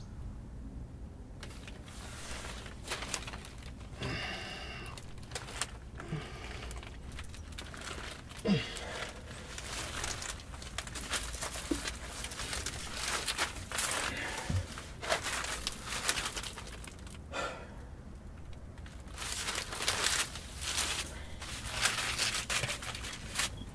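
Dry reed mat rustling and crackling irregularly as a person moves about on it, with scattered sharp clicks.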